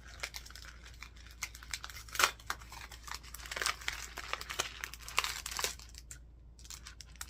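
Gift wrapping being crinkled and torn open by hand as a small package is unwrapped: irregular crackling with a sharp rip about two seconds in.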